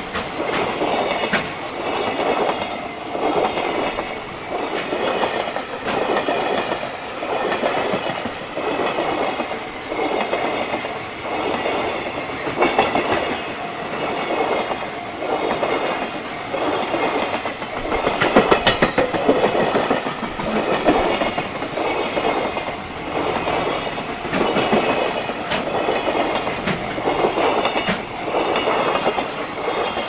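Container wagons of a freight train rolling past close by: a rhythmic clatter of wheels over rail joints that swells about once a second.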